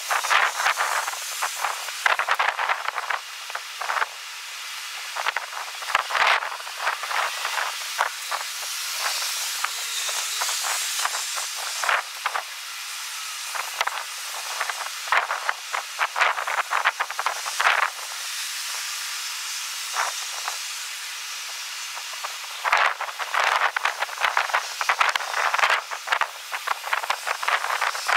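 Strong wind buffeting the microphone, played back sped up six times: a high hiss broken by rapid crackling gusts, busiest at the start and again in the last few seconds, smoother in between.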